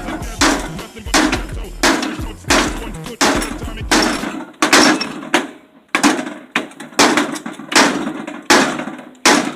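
A steady run of hard blows on a microwave oven being smashed, about one and a half strikes a second, each a sharp crack with a little rattle after it.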